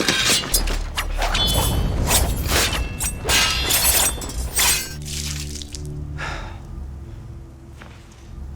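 Swords clashing in quick succession, sharp metal strikes with short ringing, for about five seconds. Then the strikes stop and a low, steady drone carries on.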